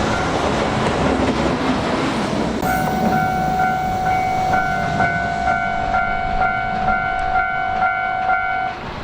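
A freight train rolls past over a level crossing, its rumble fading about three seconds in, while a Japanese level-crossing alarm dings about twice a second over a steady tone. The alarm cuts off near the end.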